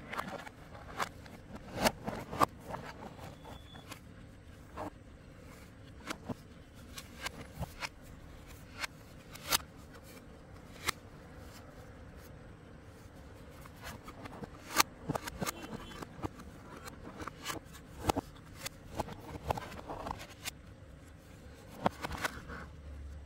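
Hands handling a plastic LED video light panel and its fittings: irregular clicks, taps and light scrapes, a few of them sharp, over a faint steady low hum.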